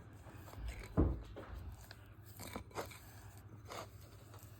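Hands working a ball of homemade glue slime: a few faint, short squishes and taps, the loudest about a second in.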